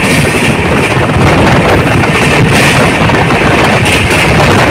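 Patna Janshatabdi Express train running at speed: a loud, steady rumble and rush of the moving train, with wind buffeting the microphone.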